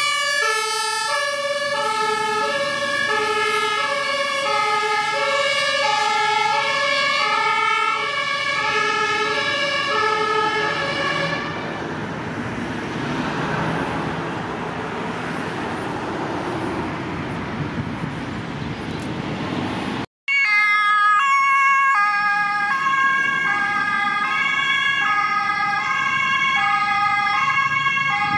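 German two-tone fire-engine siren (Martinshorn) alternating steadily between a high and a low note. About twelve seconds in, the siren gives way to the rushing engine and tyre noise of a large vehicle passing close by. After an abrupt cut, a second fire-service truck's two-tone siren sounds, pitched higher.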